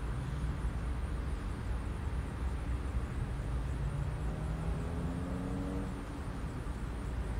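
Outdoor background noise: a steady low rumble, with a faint tone rising in pitch from about four to six seconds in.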